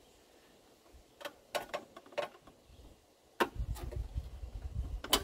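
Scattered sharp plastic clicks and taps as the cooling fan shroud's locking tabs are pried against the radiator. About three and a half seconds in a steady low rumble sets in under further clicks.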